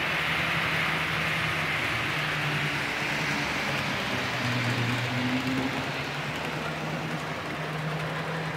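Model railway trains running on the layout: a steady rolling hiss from the track with a low hum from their motors, the hum shifting in pitch around the middle.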